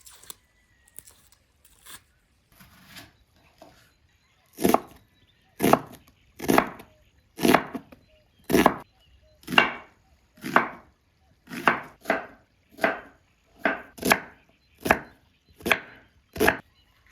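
Heavy chopping strokes, a blade striking down about once a second in a steady rhythm. A few light taps come first, then about a dozen strong strokes starting a few seconds in.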